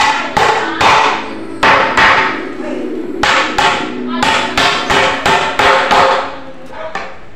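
Claw hammer driving nails into the corner joint of a wooden door jamb: a run of sharp blows, two or three a second, broken by short pauses.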